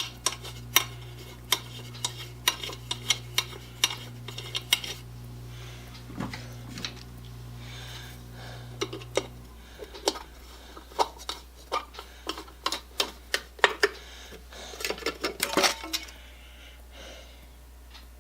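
Small stainless steel screws clinking and rattling against one another and a hard surface as they are handled, a run of sharp metallic clicks in clusters. A low steady hum cuts off about halfway through.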